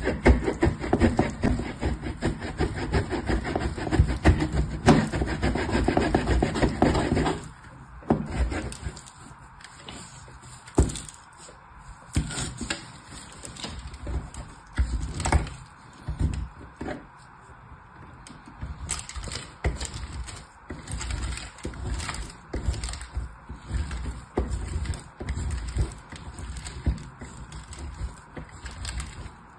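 Bar of soap grated against a metal box grater's perforated face. There is dense, continuous scraping for about the first seven seconds, then quieter, separate rasping strokes.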